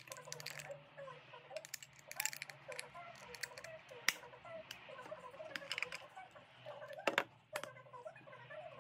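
Clicks and taps of a small round plastic cosmetic container being handled and its lid taken off, the sharpest clicks about four seconds in and again around seven seconds. Faint television voices run underneath.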